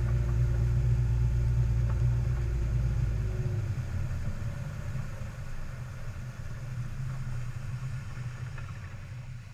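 Malibu ski boat's inboard engine running at towing speed with water rushing past. About three and a half seconds in, its deep rumble drops away and the sound eases off as the boat is throttled back.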